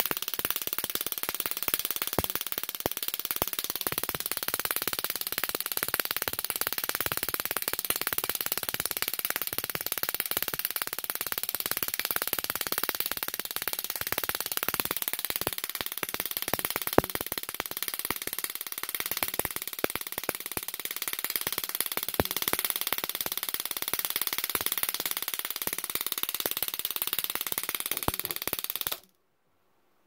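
High-voltage rig of dual ignition coils firing a microwave-oven bulb, a continuous hissing crackle packed with rapid, irregular clicks, while a radiometer probe near the bulb picks up the X-rays it gives off. It cuts off suddenly about a second before the end as the high voltage is switched off.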